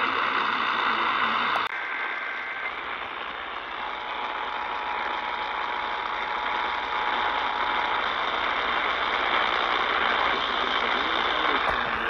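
Hiss and static from the speaker of an Eton Elite Traveler portable radio tuned to an AM station, changing abruptly about two seconds in. A faint steady tone sits under the hiss for a few seconds in the middle.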